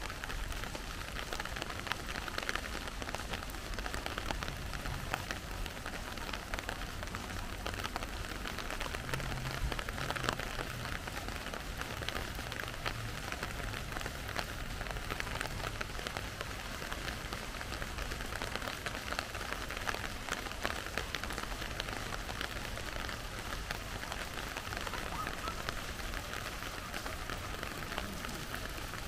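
Steady rain falling, a constant wash of many small drop ticks.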